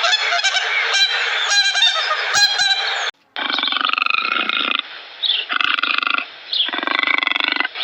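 Farm birds honking and calling in a dense, busy chorus that cuts off about three seconds in. Then come three separate harsh, rasping calls, each about a second long.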